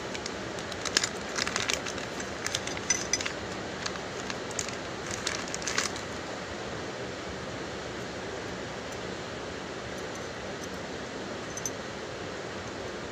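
Plastic bag crinkling and stainless steel hand-mixer beaters clinking together as they are unwrapped and handled, a run of sharp clicks and crackles over the first six seconds. After that only a steady low hiss remains.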